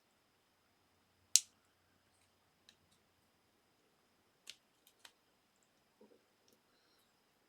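Sharp clicks and snaps of small plastic phone parts being handled and pried at to free a part from the housing: one loud click about a second and a half in, then a few fainter ticks.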